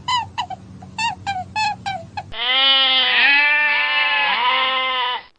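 A quick run of short, high honking calls, several a second. About two seconds in, this cuts to a sheep's long, wavering bleat that lasts some three seconds.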